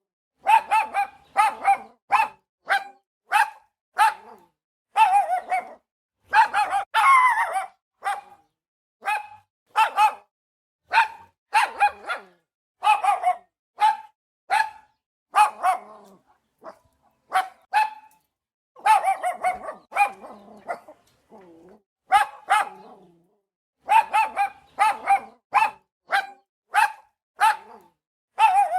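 A dog barking over and over in quick runs of short, sharp barks, with brief pauses between runs.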